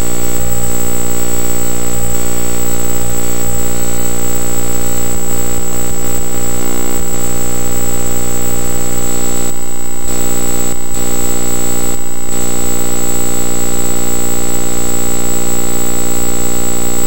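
Video colour-channel signals from a circuit-bent Sony Video Sketchpad toy heard directly as audio, modulated by oscillators through its CV inputs: a loud, harsh, steady buzzing drone of many stacked tones with a thin high whine on top. A few brief dips in the hiss come about two-thirds of the way through.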